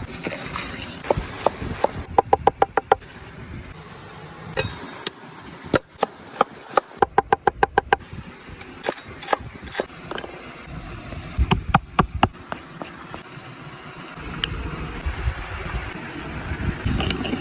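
Knife chopping on a cutting board: three short runs of rapid strikes, about eight to ten a second, with single knocks in between.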